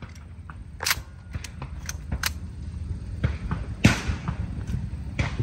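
Shotgun shots on a sporting clays course: about four sharp reports, the loudest a little under four seconds in, with smaller clicks and knocks between them.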